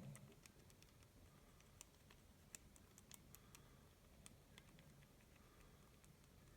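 Faint, irregular clicks of the push buttons on an ARRONE mechanical combination door lock being pressed one at a time under tension, testing which buttons bounce back and which stay down as part of the code.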